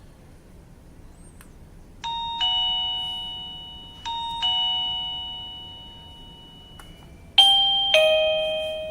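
Plug-in wireless doorbell chime receiver for a Mountdog M6 video doorbell playing a two-note ding-dong twice, each note ringing and fading. Near the end a louder ding-dong at different pitches begins.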